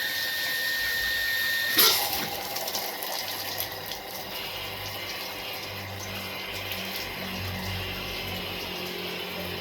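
Household water booster pump system being tested: a steady high whine stops with a sharp clack about two seconds in, then water rushes with a low pump hum underneath.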